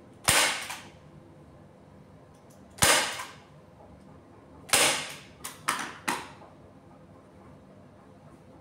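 Staple gun firing staples through the fabric covering of a bed base. There are three sharp snaps a couple of seconds apart, then three quicker, lighter ones about five to six seconds in.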